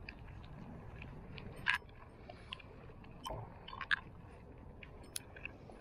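Irregular clicks, ticks and rustles of gloved hands handling a fishing rod and spinning reel, over a steady low rumble of wind on the microphone.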